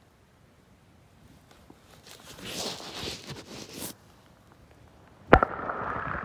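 Crackling and scraping of gravel and silt being stirred in shallow stream water by a wader boot, with one sharp knock about five seconds in, after which a steady, muffled water noise sets in.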